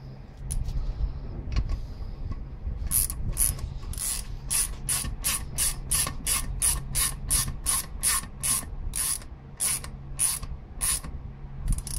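A hand ratchet with a 14 mm socket clicking as it turns the bolt of a 4G63 valve spring compressor, compressing a valve spring. The clicks come evenly, about three a second, from about three seconds in until near the end, with a few scattered clicks before.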